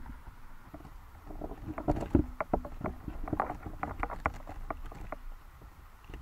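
Underwater sound through an action camera's waterproof housing: a low rumble with a run of irregular clicks and knocks, thickest and loudest from about one and a half seconds in and thinning out near the end.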